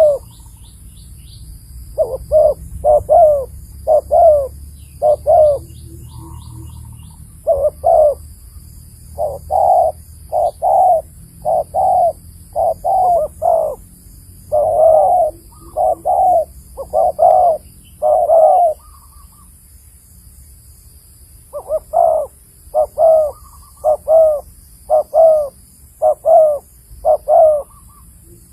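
Spotted dove (tekukur) cooing close by: a long series of loud coo notes, about one or two a second, breaking off for a few seconds past the midpoint and then starting again. Faint short high chirps from small birds in the first few seconds.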